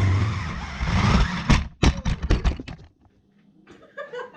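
Tyco Nitro Dozer radio-controlled toy car launched down a plastic slide: a loud rush of motor and tyres that fades, then a quick clatter of knocks about a second and a half in as it lands and tumbles.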